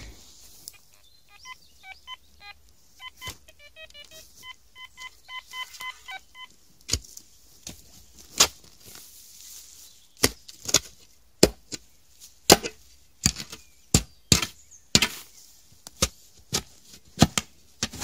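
A metal detector sounds short beeps at several different pitches over a weak buried target. A spade then digs into the ground in a string of sharp, separate strikes, roughly one or two a second.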